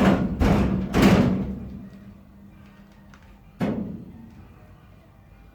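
Steel floor panel being forced into a car body shell: a few heavy metal knocks in the first second, ringing on, and another knock about three and a half seconds in.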